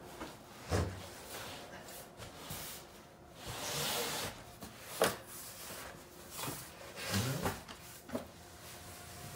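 Cardboard cases of toilet paper being shifted and set down: several dull knocks and thumps, with a longer scraping rustle of cardboard midway.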